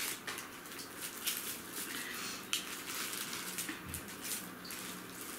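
Plastic sleeve and paper wrapping being handled and pulled open by hand, crinkling and rustling in short, irregular spells.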